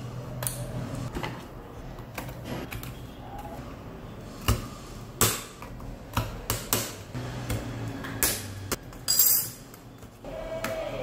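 Plastic clicks and snaps as a laptop keyboard is pried out of its top case with a plastic pry tool, the retaining clips popping loose; the sharpest snaps come in the second half. A low steady hum underneath stops about eight and a half seconds in.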